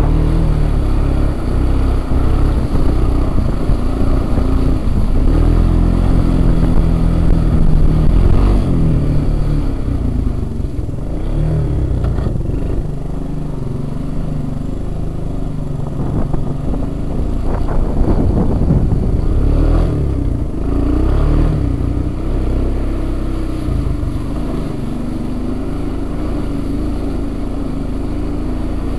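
Honda Big Red ATV engine running and revving as it rides through a muddy, flooded track, with water splashing against the machine. The engine is loudest in the first third, then settles to a lower, steadier run.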